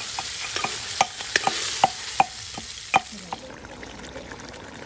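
Fish frying in hot oil in an iron wok, sizzling steadily, while a metal slotted ladle strikes the pan with several ringing clinks as the pieces are stirred and lifted out. About three and a half seconds in the sizzle falls away to a faint hiss.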